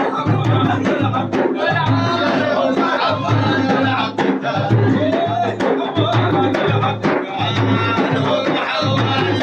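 Drums beating a steady rhythm of about two strokes a second for a Sufi madeeh praise song, with the group's voices heard over it between sung lines.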